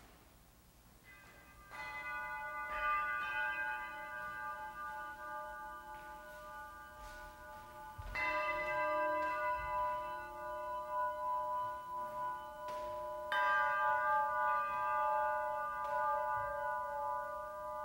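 Metal percussion instruments struck a few times, each strike leaving a cluster of bell-like tones that ring on long and overlap with the next.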